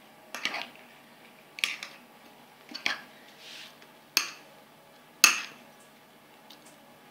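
Metal spoon clinking and scraping against the sides of a glass bowl while stirring coconut chutney: five sharp knocks, roughly one a second, the fourth (about five seconds in) the loudest.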